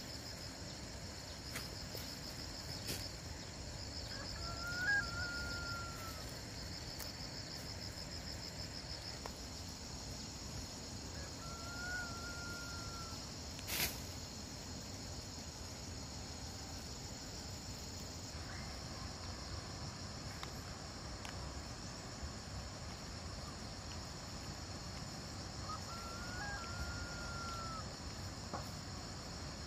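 Outdoor rural ambience: insects drone steadily, with rapid pulsed chirping for the first nine seconds or so. A rooster crows three times. There is one sharp click about fourteen seconds in.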